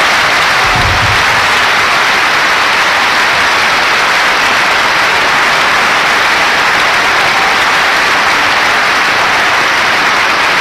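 A large audience applauding steadily, a dense, even wash of clapping with no letup.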